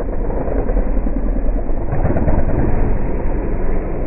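Several motocross bikes racing over a jump on a dirt track, their engines making a dense, steady din that swells slightly about two seconds in.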